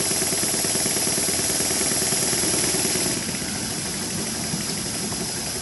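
Double-acting slide-valve model mill engine running on compressed air, with a rapid, even beat of exhaust puffs and mechanical clicking over a steady hiss of air. It gets a little quieter about three seconds in.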